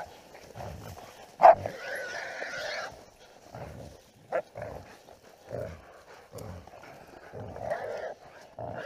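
Hog dogs holding a caught wild hog at close range: animal cries and barking in stretches, with one loud, sharp cry about one and a half seconds in.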